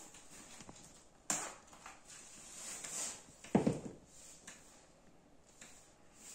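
Leather ankle boot being pulled off and set down on a laminate floor: a sharp knock about a second in, some rustling, then a dull thud of the boot landing on the floor about three and a half seconds in, followed by faint shuffling.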